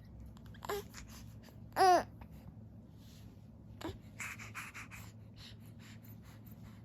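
An infant cooing and babbling in a few short vocal sounds, the loudest about two seconds in with a falling pitch, then a quick run of breathy sounds a little after four seconds in.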